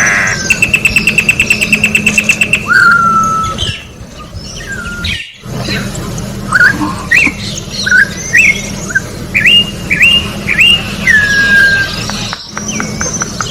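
Campo troupial (corrupião) singing: a series of loud, clear whistled notes, mostly short upward-sweeping notes with one longer falling slur near the end, over fainter calls of other birds. Before them, in the first few seconds, comes a fast rattle of about ten pulses a second.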